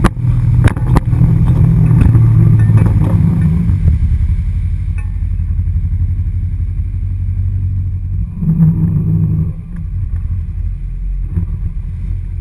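Ski boat's engine running under throttle with water rushing along the hull; it eases off about four to five seconds in, picks up briefly near nine seconds, then runs slower as the boat turns.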